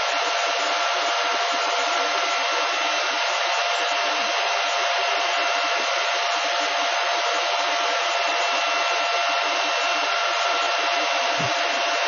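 Cooling fans of a Silver Fish 28M Litecoin ASIC miner and its server power supply, running steadily while the miner hashes: an even rush of air with a constant multi-toned whine.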